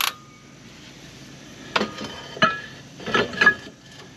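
Star adjuster wheel of a Jeep TJ rear drum brake clicking once as it is turned to spread the too-loose shoes. Then the cast iron brake drum clanks and scrapes over the shoes and hub studs as it is slid back on, with several knocks from about two to three and a half seconds in.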